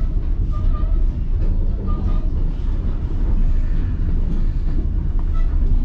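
Steady low rumble of a moving passenger train, heard from aboard a railcar.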